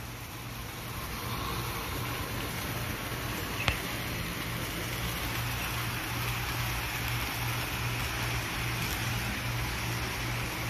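HO-scale model train running on the layout track: a steady motor whir and wheel noise with a pulsing low hum, and one short click about three and a half seconds in.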